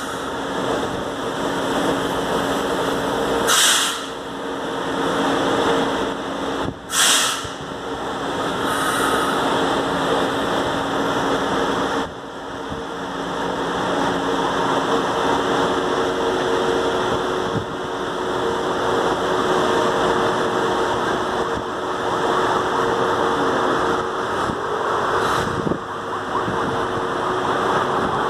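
São Paulo Metro L-series train standing at the platform with its onboard equipment running: a steady mechanical noise with a hum of a few steady tones. Two short hisses break through about four and seven seconds in, and the noise drops a little about twelve seconds in.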